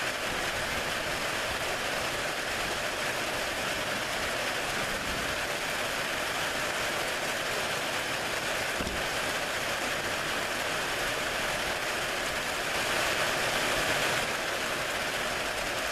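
Steady heavy rain from a thunderstorm, swelling slightly for a moment near the end.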